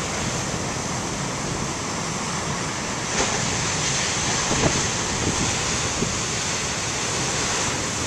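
Heavy ocean surf breaking and washing steadily, with wind rumbling on the microphone and a few faint knocks.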